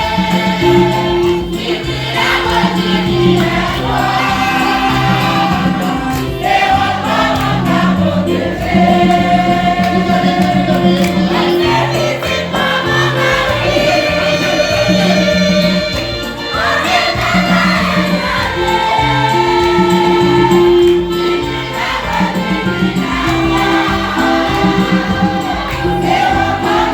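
A choir singing a hymn in held, sustained notes over a steady instrumental bass line.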